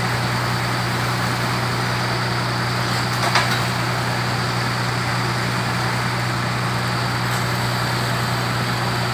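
Concrete mixer truck's diesel engine running steadily while its drum discharges the test water, which gushes down the chute and splashes onto the ground.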